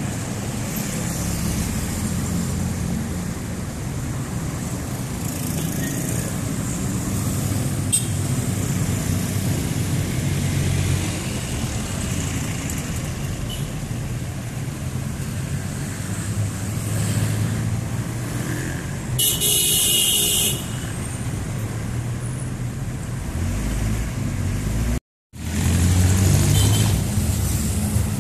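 Busy road traffic: cars, trucks and jeepneys passing with a steady engine rumble. There is a brief shrill sound about two-thirds of the way in, and the sound cuts out for a moment near the end.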